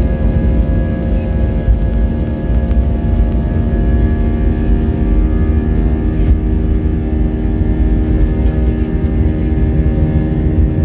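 Airliner's engines at steady high power heard from inside the cabin during the takeoff roll, over a deep rumble from the wheels on the runway. Several steady engine tones sit above the roar.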